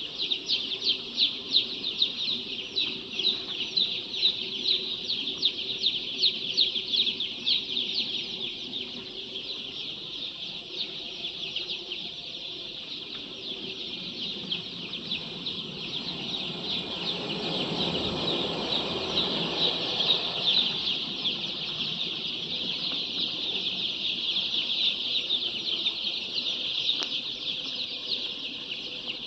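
A crowd of chickens calling, dominated by a dense, continuous high-pitched cheeping, with some lower clucking. A broader rustling noise swells and fades around the middle.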